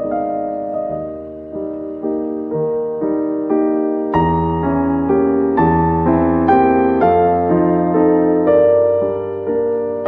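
Background piano music, notes played at an even pace of about two a second, with low bass notes joining about four seconds in.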